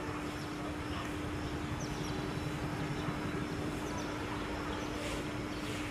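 Outdoor ambience: a steady low hum over a rumbling background, with faint, short chirps of small birds now and then.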